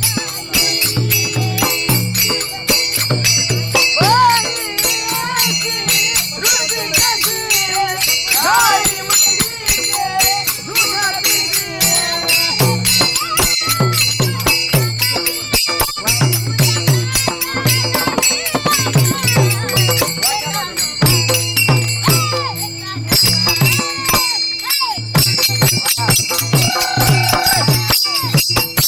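Warkari bhajan music: small hand cymbals (tal) clashing in a dense, continuous jingle, drum strokes on a steady beat, and a woman singing a gavlan.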